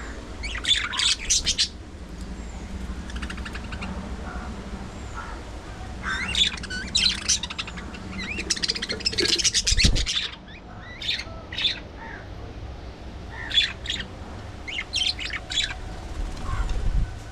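Budgerigars chirping and squawking in bursts of overlapping calls with short pauses between, over a steady low rumble, with a low bump about ten seconds in.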